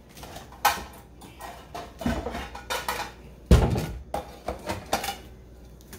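China dishes clinking and clattering as a plate is taken out, a series of separate knocks with one heavier thump about three and a half seconds in.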